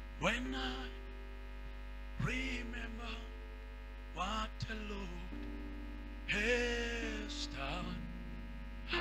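A voice shouting four short calls about two seconds apart, each sweeping sharply up in pitch and then held briefly, as in loud prayer over people. Under them, soft sustained background music and a steady electrical hum.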